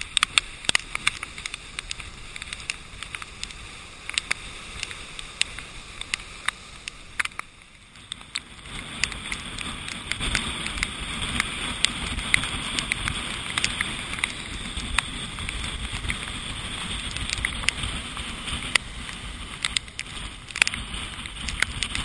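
Heavy storm surf churning and breaking against rocks, mixed with wind on the microphone and many sharp ticks of rain and spray striking the GoPro's waterproof housing. About eight seconds in the noise dips briefly, then comes back louder.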